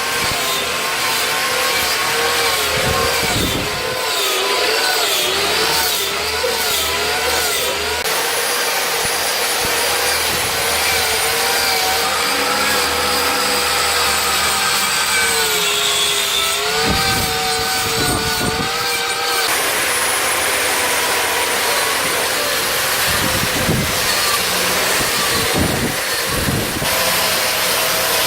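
Electric power-carving tool cutting into ash wood. Its motor whine wavers and dips in pitch as the cutter is pressed in and eased off, over a steady grinding hiss from the wood being removed.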